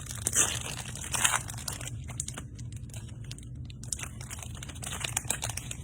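Glossy chrome trading cards being handled and flipped through by hand: quick scraping and crinkling rustles, loudest in the first second or so, over a steady low hum.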